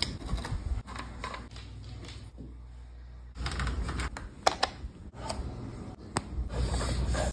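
Clicks, taps and knocks of tools and parts being handled while assembling an e-bike: a wrench at the handlebar clamp, the seat post going in, and cable connectors pushed together, with a few sharper clicks in the second half. A low rumble runs underneath.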